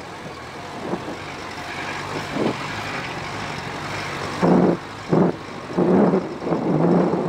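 Car driving along a rutted dirt track: steady engine and tyre noise, then a run of loud short bursts from about four and a half seconds in.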